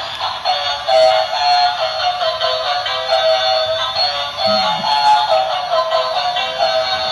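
Battery-powered transforming robot car toy playing its electronic tune through a small speaker: a quick, tinny stepping melody of beeping notes.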